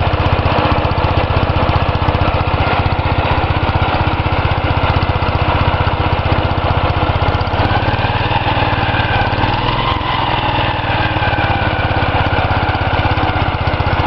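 Cub Cadet 126 garden tractor's single-cylinder Kohler engine running steadily at idle, its pitch shifting slightly about halfway through.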